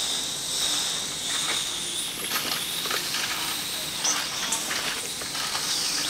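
Steady hiss of gas flowing through an infant ventilator's breathing circuit, with a steady high-pitched tone over it and a few faint clicks.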